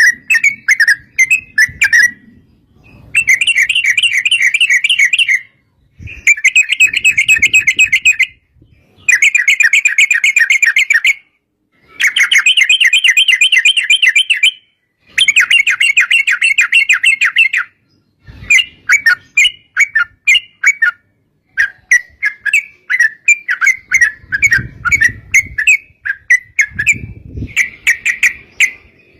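Yellow-vented bulbul (trucuk) singing a loud chattering song. It runs in rapid trilled phrases of about two to three seconds, each separated by a short pause, then breaks into choppier, shorter notes over the last third.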